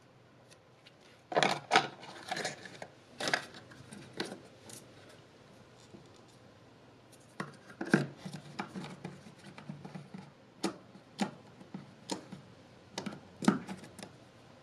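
Handling noise of a phone's boxed accessories: sharp clicks and taps with rubbing as a coiled plastic earbud cable and the cardboard box insert are handled. The noises come in irregular clusters, the loudest a little after the start, about eight seconds in, and near the end.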